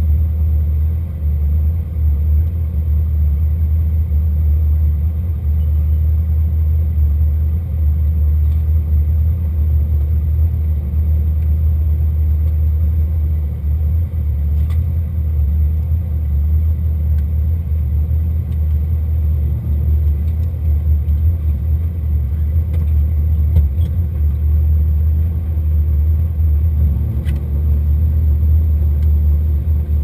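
Opel Mokka Dakar rally car's engine idling while the car stands still, heard from inside the cabin as a steady deep rumble.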